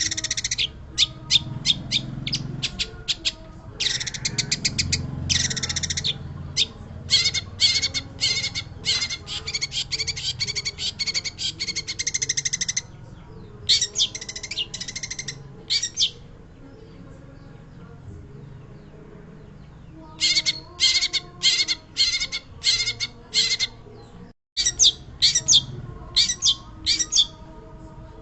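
Long-tailed shrike (pentet) singing vigorously: long runs of rapid, sharp chattering notes, several a second, broken by a lull of a few seconds in the middle before the runs start again.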